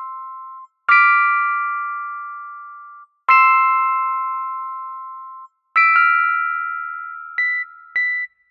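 Slow electric-piano or chime-like keyboard chords. Each is struck and left to ring out, fading over about two seconds. Three long chords are followed near the end by two short, higher notes.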